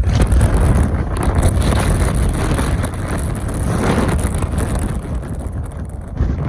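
Wind gusting across the microphone: a loud, uneven rumble that eases a little in the second half.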